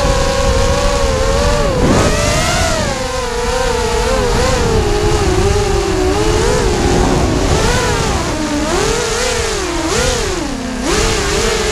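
FPV racing quadcopter's motors and propellers buzzing loudly, heard from a camera mounted on the quad, the pitch rising and falling constantly with the pilot's throttle.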